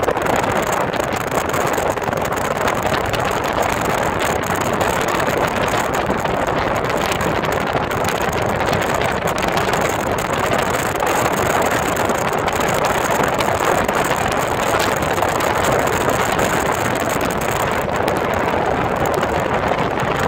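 Steady rushing noise of 4x4 vehicles driving and wind on the microphone, unbroken throughout with no clear engine note.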